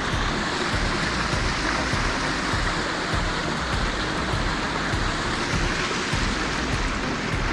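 Steady rush of falling water from a waterfall, a dense even hiss with no breaks.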